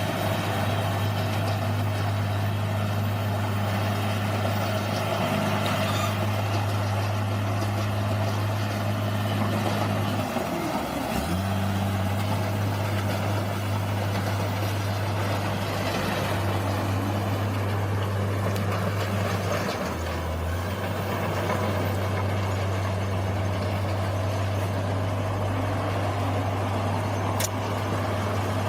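Bulldozer's diesel engine running steadily, its low note dipping briefly about eleven seconds in and again around twenty seconds in.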